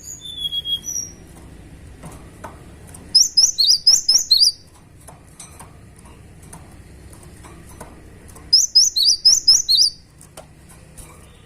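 Cinereous tit (gelatik batu) singing: two loud runs of rapid, high, repeated notes, each about a second and a half long and about five seconds apart. Softer high calls come in the first second.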